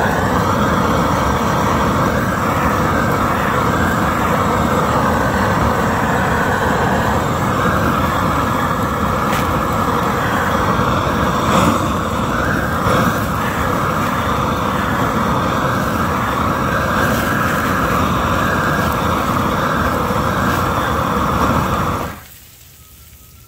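Handheld gas torch burning at full blast, a loud steady roaring hiss as its flame sears a butter-topped ribeye. It shuts off abruptly about 22 seconds in.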